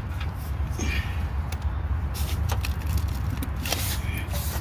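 Scattered light clicks and taps of metal as the old front shock absorber's lower mount is handled, over a steady low rumble.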